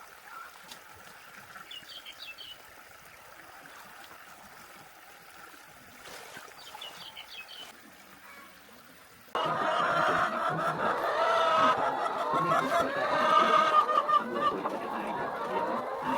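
A flock of laying hens clucking, faint at first and then suddenly loud and crowded about nine seconds in, with many birds calling at once. A few faint high chirps come earlier.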